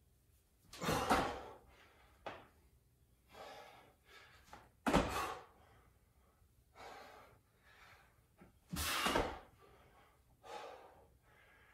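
A man breathing hard in sharp exhales, with thuds of feet landing on a wooden floor from squat jumps. The loudest come about every four seconds, with softer breaths and shuffles between.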